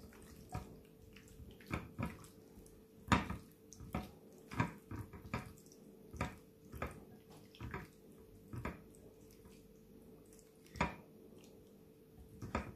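Wet squelches of chicken wings being squeezed and turned by a gloved hand in a yogurt marinade in a glass bowl, coming irregularly about every half second to a second. A faint steady hum lies underneath.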